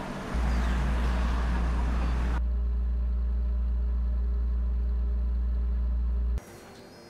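City traffic noise that cuts off about two seconds in, under a loud, deep, steady low hum that starts just after the beginning and stops abruptly about six seconds in.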